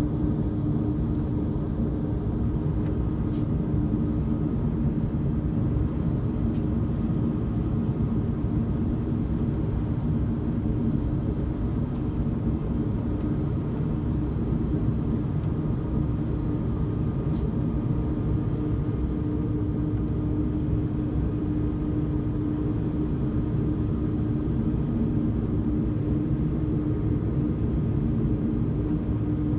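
Jet airliner engines running at a steady low power: a constant rumble with a steady low hum that neither rises nor falls.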